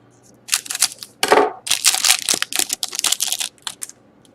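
Trading-card pack being handled: a quick run of crinkling, tearing and rustling of the wrapper and the cards, dense for about three seconds and then stopping.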